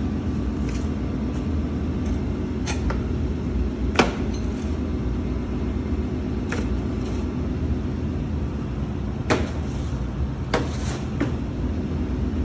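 Scattered knocks and clicks from hands working inside a floor scrubber's battery compartment, over a steady low hum. The loudest knock comes about four seconds in.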